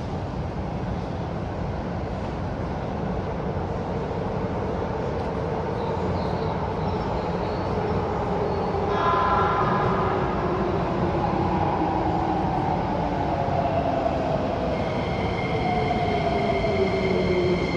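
Keikyu 1000 series electric train braking into an underground station: the whine from its Toyo IGBT-VVVF inverter and Mitsubishi traction motors falls slowly in pitch as it slows, over a rumble of wheels, echoing in the station. A brief cluster of higher tones comes about halfway through, and a steady high-pitched whine sets in near the end as it nears a stop. This motor combination gives the set an unusual sound, unlike the other four-car sets.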